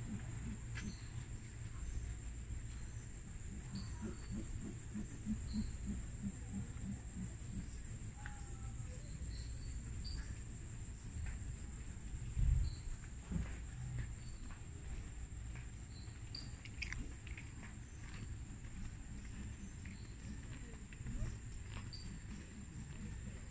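Steady, high-pitched chorus of rainforest insects at dusk, one unbroken shrill drone, over a low rumble, with a single low thump about halfway through.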